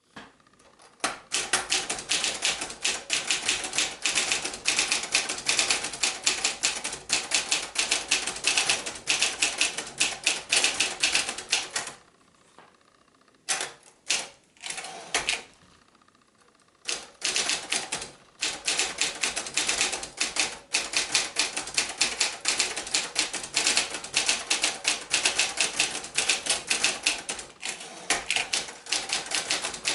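Brother-built Montgomery Ward Escort 350 portable manual typewriter being typed on at speed, its keys striking in rapid runs of clicks. A pause of a few seconds comes near the middle, broken by only a few single key strokes, before fast typing resumes.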